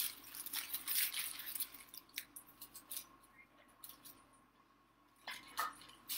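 Faint crinkling and rustling of a chocolate bar's wrapper being handled, with a few light clicks. It is busiest at first, dies down midway and picks up again near the end.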